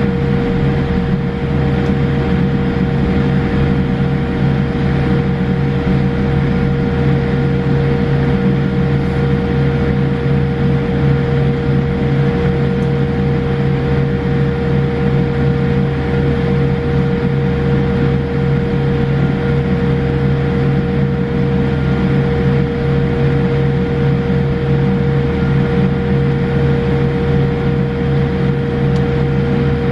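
Boeing 787-8 cabin noise during taxi: a steady engine and airflow rumble with constant droning hum tones, unchanging throughout.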